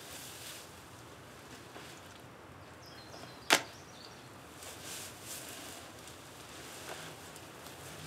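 Cotton cloth ripped once, sharp and brief, about three and a half seconds in, torn with the teeth. Softer rustling of cloth follows.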